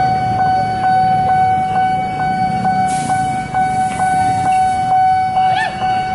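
Railway level-crossing warning alarm sounding a steady tone with a regular ticking beat, over the low rumble of road traffic engines. A hiss comes in about halfway through, and brief wavering tones sound near the end.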